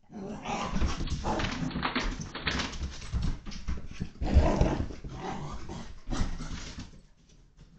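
Portuguese Water Dog puppy growling and grumbling in excited play, in rough bursts with the loudest about four and a half and six seconds in, dying away near the end.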